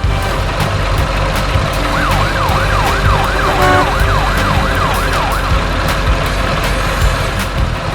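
Siren yelping rapidly up and down, about three sweeps a second, for a few seconds starting about two seconds in, over a loud steady rumble and hiss. A short horn toot sounds midway.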